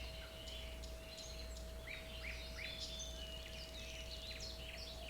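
Several birds chirping and calling, many short overlapping notes rising and falling in pitch, over a faint steady hum.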